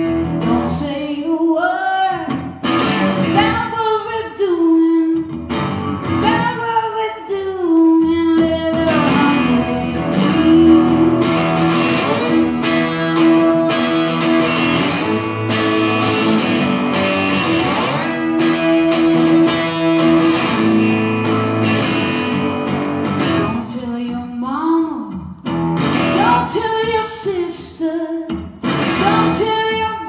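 A woman singing live while playing an amplified Flying V electric guitar. About a third of the way in the voice drops out and the guitar plays on alone with held chords, and the singing comes back near the end.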